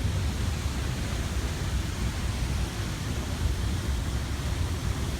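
Waterfall's steady rushing noise, with a heavy, rumbling low end.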